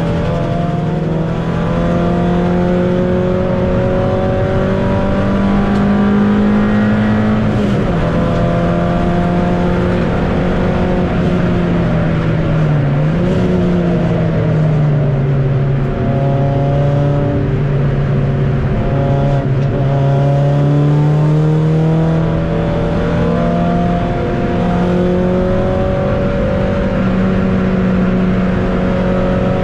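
Ford Puma Cup race car's four-cylinder engine heard from inside the cabin, running hard on track. Its pitch rises, drops at a gear change about a quarter of the way in, dips and recovers near the middle, then holds lower before climbing again near the end.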